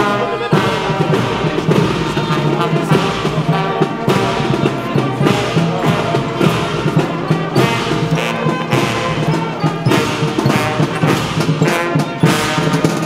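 Marching brass band playing, with a steady beat under the brass.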